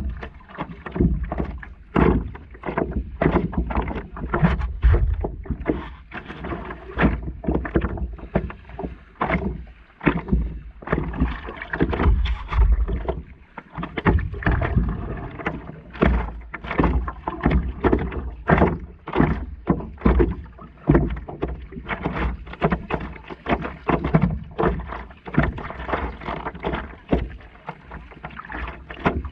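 Stand-up paddleboard paddle dipping and splashing in river water, stroke after stroke at an uneven rhythm, with water sloshing against the board close to the microphone.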